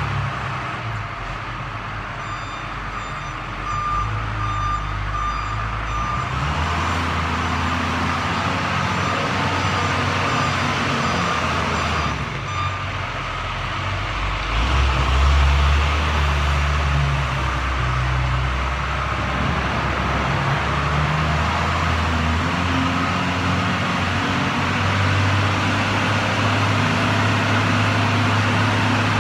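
Wheel loader's diesel engine working, its pitch rising and falling as it digs and pushes salt. Its reversing alarm beeps in a short run of evenly spaced tones a few seconds in.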